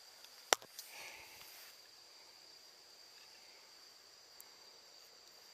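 A fishing cast: a sharp click about half a second in, then a brief faint hiss of line paying off the reel as the lure flies out. A steady high insect trill runs underneath.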